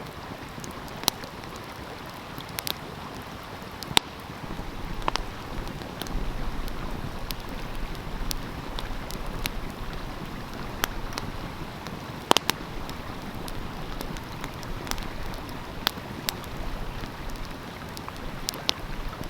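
Wood fire crackling with scattered sharp pops, over the steady rush of a stream. From about six seconds in, a low wind rumble on the microphone joins in.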